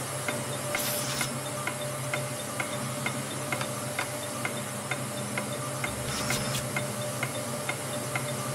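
Canister vacuum cleaner running steadily, a hiss over a low motor hum, under the game-show countdown clock ticking about twice a second. Twice the hiss briefly turns brighter, about a second in and again past the six-second mark.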